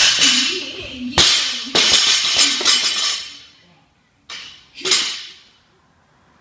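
A 115 lb barbell loaded with bumper plates is dropped from overhead onto the gym floor. Two loud impacts about half a second apart as it lands and bounces, then a rattling that dies away.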